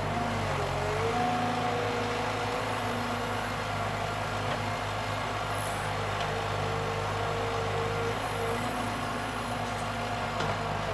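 Forestry harvester's diesel engine running steadily as the machine drives and works its crane, with a whine that wavers up and down in pitch over the engine hum.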